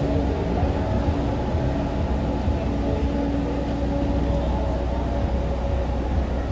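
Coach bus idling at the kerb: a steady low engine rumble with a steady hum over it that drops away about two-thirds of the way through.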